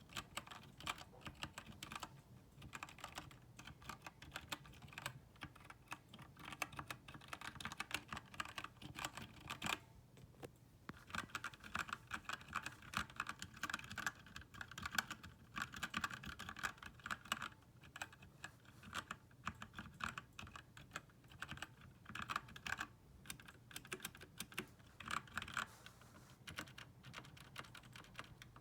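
Typing on a Redragon Kumara K552 RGB mechanical keyboard with brown switches: rapid runs of keystrokes in irregular bursts with short pauses, the letter keys fitted with PBT keycaps and o-rings that dampen bottoming out.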